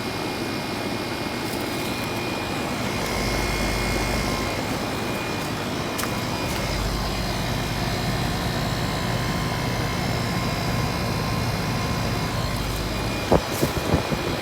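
Three 2-ton central air conditioner condensers, a Goodman GSX13 and two Ruud units, running together: a steady compressor hum under the outdoor fans' whoosh. A few sharp knocks come near the end.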